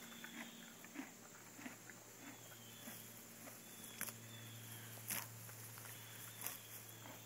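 Paint horse grazing close up: grass being torn off and chewed, a run of irregular crisp snaps and crunches, with a few louder ones around four, five and six and a half seconds in. A steady low hum runs underneath.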